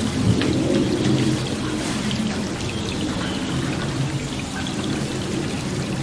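Steady rain falling, a continuous hiss with scattered drop hits.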